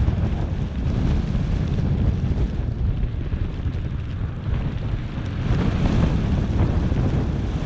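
Wind buffeting the microphone of a camera carried by a skier moving through powder snow: a loud, gusty low rumble with a fainter hiss above it, easing a little midway and swelling again later.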